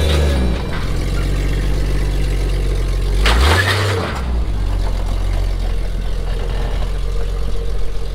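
Lifted Jeep's engine running at low speed, revved up briefly at the start and again about three and a half seconds in as the Jeep climbs onto a trailer without ramps.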